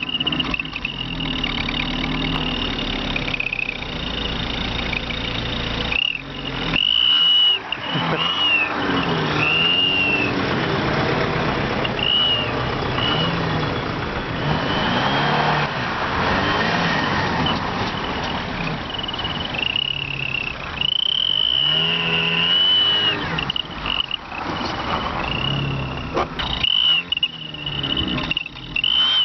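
Daewoo Nexia engine revving up and down while a Turbo Whistler exhaust-pipe whistle gives a high whistle that swells in and dies away again and again with the throttle. The whistle is an add-on meant to mimic a turbo's whistle.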